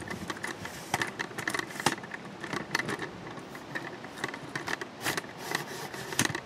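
Rusty steel snow plow frame and fittings being handled, giving irregular light metallic clicks and clinks, a few a second.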